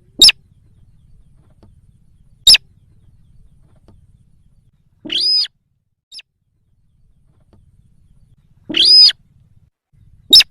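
Sintar bird lure call: three short, sharp call notes spaced a few seconds apart, and between them two longer, ringing calls of about half a second each.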